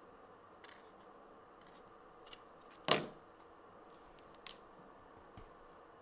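Small clicks from a Swiss Army knife and its red plastic back scale being handled and set down on a wooden workbench, one sharp click about three seconds in louder than the rest.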